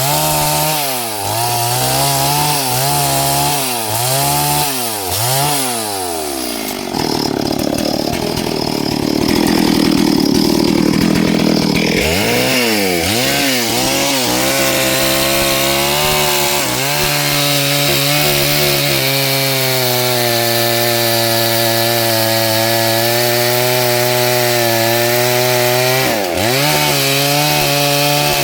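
Small chainsaw running at high revs and cutting through wood. For the first several seconds its pitch dips and recovers about once a second, then it holds a steady high whine under load, bogging briefly once near the end.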